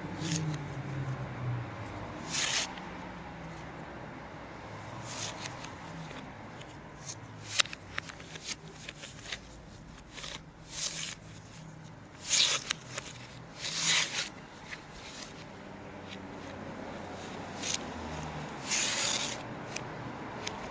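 Hands handling small objects close to the microphone: irregular rubbing and rustling with scattered sharp clicks, busiest in the middle.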